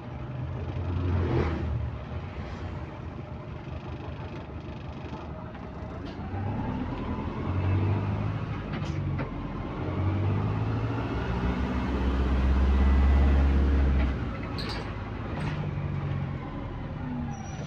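Bus engine with a leaking exhaust, pulling away and easing off several times, loudest about three-quarters of the way through. A whine rises and then falls in pitch over the second half.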